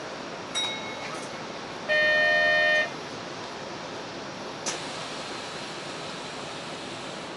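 Train horn sounding one steady two-tone blast of about a second, after a brief beep, over the train's steady running and ambient noise; a sharp click follows a few seconds later.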